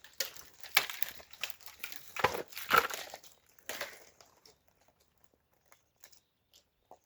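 Dry branches and brush crackling and snapping, with several louder cracks in the first few seconds before it dies away to a few faint ticks.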